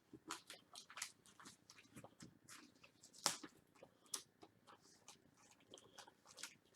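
Faint crinkling and clicking of a plastic comic-book poly bag being handled and turned over while its seal is checked, with one sharper crackle about three seconds in.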